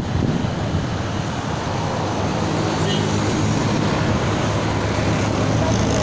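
Riding a motorcycle in city traffic: a steady rush of wind and road noise, with a low engine hum that grows stronger from about two seconds in.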